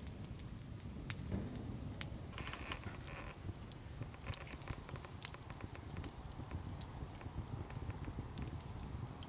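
Small wood campfire burning, crackling with scattered sharp pops over a low, steady rumble of flames.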